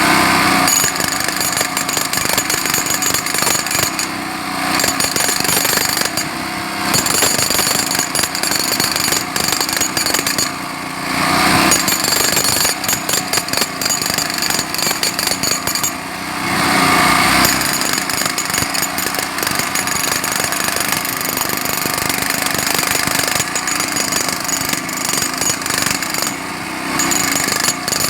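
Jackhammer running, rapid hammer strikes with short lulls where it stops and starts again several times.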